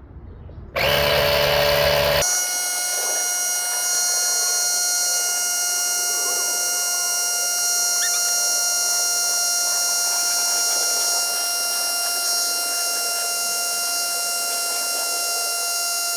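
Small portable tire-inflator air compressor, built into a jump starter, running while it pumps up a car tire. It starts about a second in, and about two seconds in its sound changes abruptly to a steady whine over a hiss.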